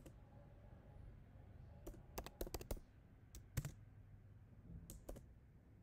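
Faint, irregular keystrokes on a computer keyboard while code is typed: a handful of separate clicks, mostly from about two seconds in.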